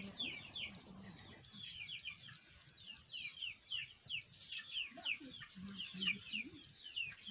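Birds chirping over and over, in many short, quick falling chirps. About five seconds in there are low notes, like a chicken clucking.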